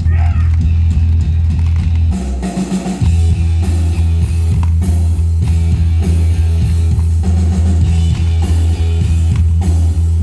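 Rock music with guitar and drum kit over a heavy, steady bass beat. The beat breaks off for about a second, two seconds in, then comes back.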